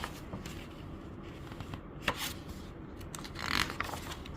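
Paper rustling as a picture book's pages are handled and turned, in short rustles about two seconds in and again near three and a half seconds.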